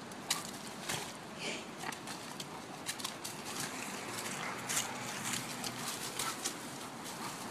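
Scuffling of a Bengal cat and a Malamute-Husky dog through dry leaves and bark mulch around a small palm: irregular sharp crackles and rustles over a steady background hiss.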